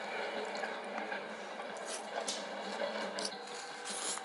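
Close wet chewing and slurping of chow mein noodles, with a few short smacks and clicks.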